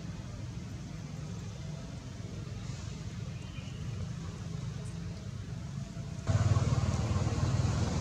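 Steady low outdoor background rumble with no distinct events. About six seconds in it steps up suddenly to a louder, fuller rumble.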